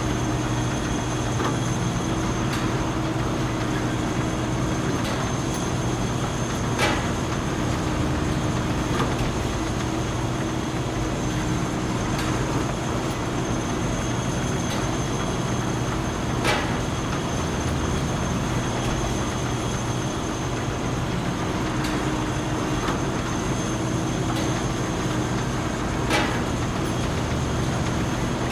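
Factory machinery running steadily: a constant hum with a thin high whine, broken by a sharp clank roughly every ten seconds, three of them louder than the rest.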